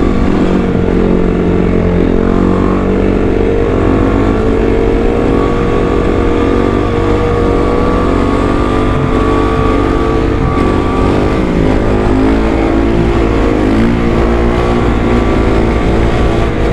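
Motorcycle engine running under way, its pitch rising and falling with throttle and speed.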